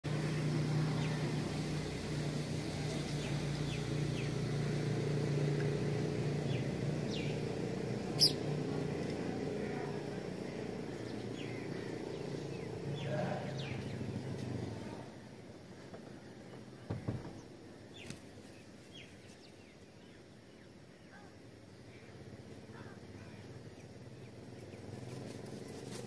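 Scattered short chirps of small birds over a steady low background rumble that drops away about fifteen seconds in. A single sharp click about eight seconds in and a couple of soft knocks around seventeen seconds.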